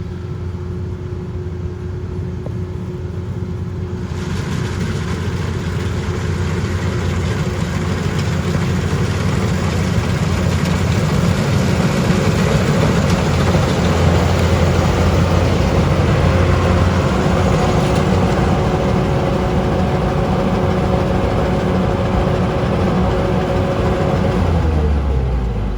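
Farm machine's engine running steadily with a low hum. About four seconds in, a louder rushing, clattering noise joins it and keeps on until shortly before the end, when the engine note drops.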